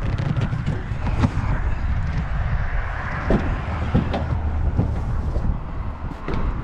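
A refrigerator being tipped and wheeled on a hand dolly: scattered knocks and rattles over a steady low rumble.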